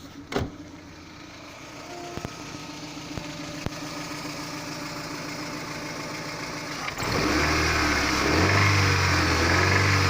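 Daewoo Nexia engine running, at first quietly with a few isolated clicks, then suddenly much louder about seven seconds in, its speed wavering up and down. The owner is trying to find the source of a knock.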